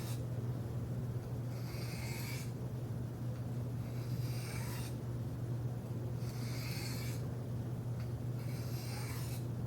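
Steel knife blade drawn lightly across a diamond sharpening plate in alternating edge-finishing strokes: four soft scraping swipes about two and a half seconds apart, over a steady low hum.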